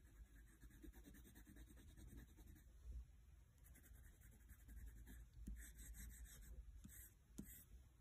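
Faint scratching of a wax crayon on sketchbook paper in quick, closely repeated strokes as an area is coloured in. A few light clicks near the end.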